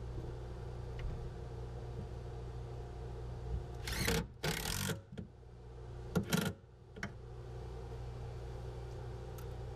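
Cordless drill/driver driving a screw into a small wooden L-bracket in three short bursts, about four to six and a half seconds in, over a steady low hum.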